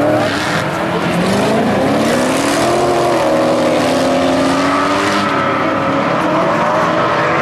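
Several stock-car engines running hard, their pitches rising and falling and overlapping as the cars accelerate and lift through the dirt-track corners.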